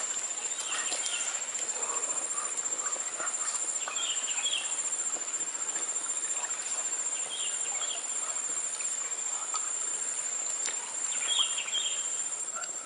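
Insects trilling steadily at a high pitch, with short bird chirps breaking in a few times.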